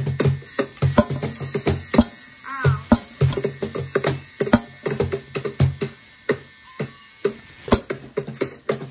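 Improvised experimental music: an irregular run of sharp clicks and knocks over a low droning tone, with a brief wavering pitch glide. The low drone drops out for a second or so past the middle, then returns.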